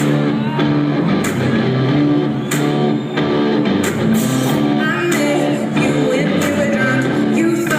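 Live rock band playing: bass, electric guitar and a drum hit about every second and a quarter, with a woman's voice singing over it in the second half.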